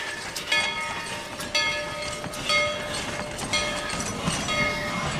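Narrow-gauge passenger coaches rolling by: steel wheels clicking over the rail joints at an uneven pace, several clicks followed by a brief high metallic ring or squeal.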